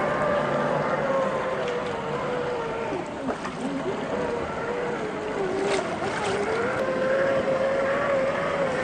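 Electric motor and drivetrain of a 1/10 scale RC crawler whining, its pitch rising and falling as the throttle changes, over a steady crunching haze from the tyres on the ground. A few sharp clicks about six seconds in.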